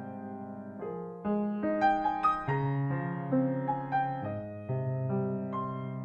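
Background piano music: a slow, gentle melody of single notes over held low chords.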